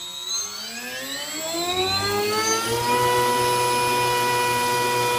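RC plane's battery-powered electric motor and propeller throttled up to full power: a whine that rises in pitch over about three seconds, then holds at a steady high pitch with a rush of air from the propeller.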